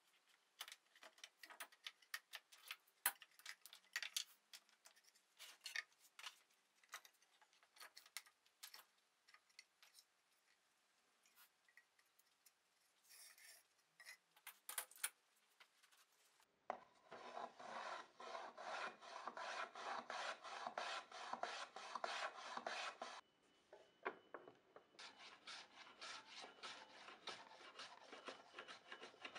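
Light scattered clicks and knocks of wooden parts being handled. Then, about halfway through, a dry, rapid back-and-forth rasping as a small piece of wood is rubbed down by hand. The strokes pause briefly and start again.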